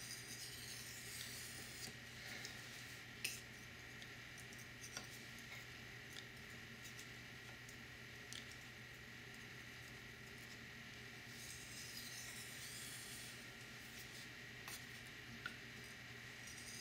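Faint scraping of a Maxamet-steel knife blade being stroked by hand across a wet 3000-grit silicon carbide water stone, with a few light clicks.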